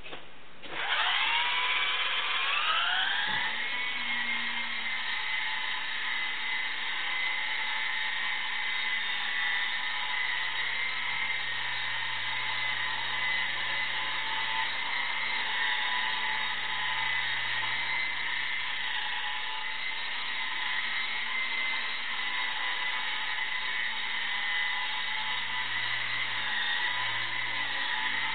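E-sky Lama V3 coaxial micro RC helicopter spinning up: its electric motors' whine starts about a second in and rises in pitch over two to three seconds, then runs as a steady high whine with rotor whir while it flies.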